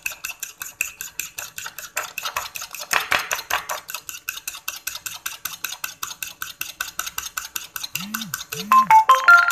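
Raw eggs being beaten fast in a ceramic bowl, a metal utensil clicking against the bowl about eight times a second. Near the end a short run of pitched tones cuts in, louder than the beating.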